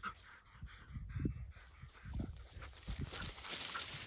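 Springer spaniel panting close to the microphone, with rustling of dry tall grass.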